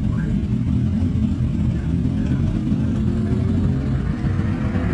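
Motorcycle running along the road, a steady low rumble of engine and wind. A faint tone slowly rises in pitch over the last couple of seconds.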